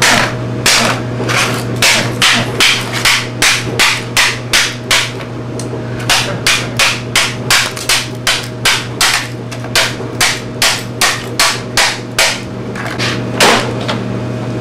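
Rapid hammer blows smashing a film camera, about three strikes a second. There is a short pause around six seconds in, then the blows resume, with one last strike near the end.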